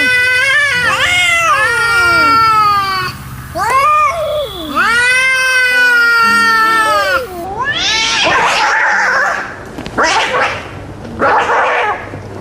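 Angry domestic cats yowling in two long, wavering, rising-and-falling howls. Then, about two-thirds of the way in, they switch to a series of short hisses.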